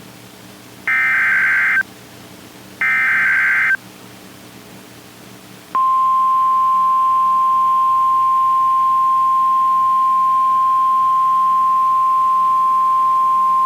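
Emergency Alert System SAME header tones: two harsh warbling data bursts of about a second each, a second apart. After a short pause comes the steady single-pitch 1050 Hz NOAA Weather Radio warning alarm tone, which starts about six seconds in and holds. The header and alarm tone signal that a new warning, here a severe thunderstorm warning, is being broadcast.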